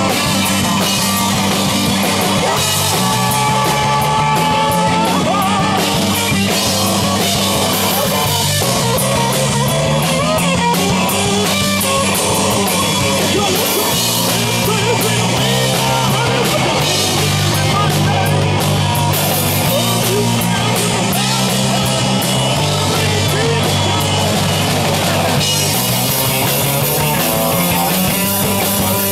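A rock band playing live and loud: drum kit, electric guitars and a bass line stepping between notes.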